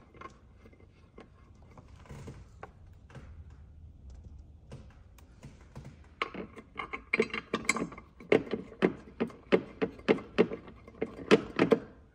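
Ratchet wrench clicking as the hatch-support mounting bolts are tightened, a quick run of about three clicks a second from about six seconds in. Before that, faint small clicks of the bolts being threaded in by hand.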